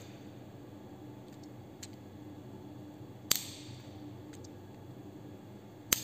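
Plug-in glass relay switched over by hand with its manual test lever: two sharp clicks, the louder about three seconds in and another near the end, as the contacts snap between the normally closed and normally open positions, with a few faint ticks of plastic handling between.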